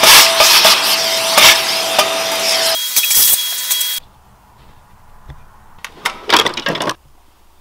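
Shop vacuum running, its hose nozzle sucking dust out of an electric motor end cap: a steady rushing whine that changes to a higher tone about three seconds in and cuts off suddenly about four seconds in. Then a few light clicks and a short rattle near the end, as a steel tool chest drawer is opened.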